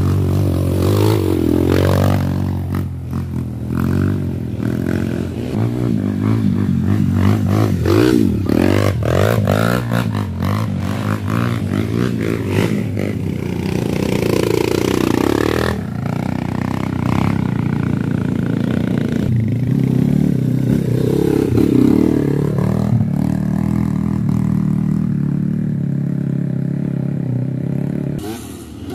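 Trail motorcycle engines revving as the bikes ride past one after another on a muddy track, several of them passing close by in turn.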